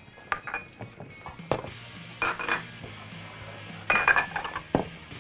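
Cooking pans and utensils clinking and knocking: a spatula against a frying pan and pots being handled on the stove, in a string of sharp clinks with the loudest cluster about four seconds in.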